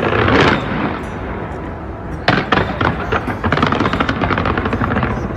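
Fireworks going off: a loud burst at the start, then from about two seconds in a rapid run of cracks and bangs, with music playing underneath.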